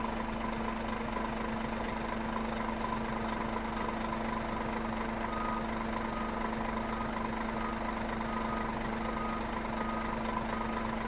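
Scania S500 truck's diesel engine idling steadily. From about halfway through, a faint high beep repeats about twice a second.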